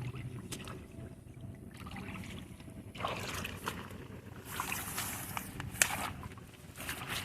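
Water sloshing and splashing as a net is swept through shallow, weedy lake water for grass shrimp, quiet at first and then in several rushes with small clicks from about three seconds in.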